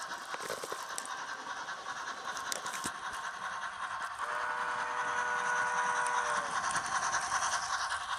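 HO scale model locomotive's DCC sound decoder playing its running sounds through the small onboard speaker, over the rattle of the wheels on the track. About four seconds in, a multi-note horn blows for about two seconds, sagging slightly in pitch as it cuts off.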